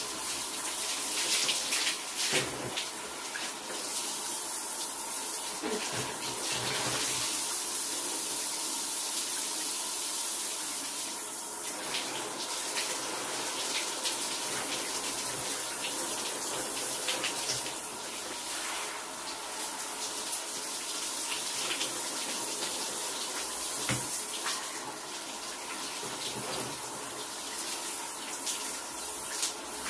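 Shower water running steadily, an even hiss of spray falling, with a few brief knocks.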